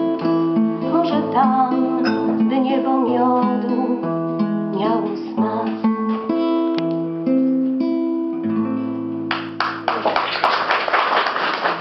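A woman singing to acoustic guitar over held chords, ending a song; about nine seconds in, applause breaks out and covers the music.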